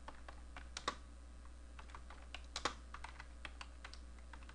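Typing on a computer keyboard: an irregular run of key clicks as a short phrase is typed out, two strokes louder than the rest, about a second in and again past the middle.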